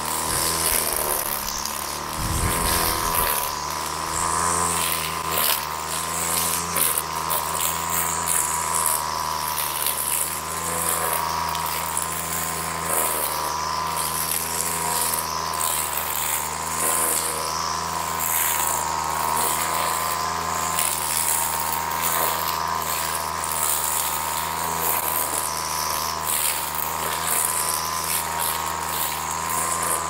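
Flymo Maxi Trim two-stroke petrol strimmer running steadily at high revs while cutting grass. It keeps its speed even in thick growth without bogging down, which shows decent power now that the carburettor has been cleaned and it runs well.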